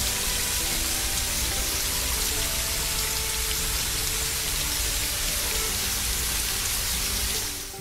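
Water hose spraying a strong, steady gushing jet, fading out near the end, over faint background music.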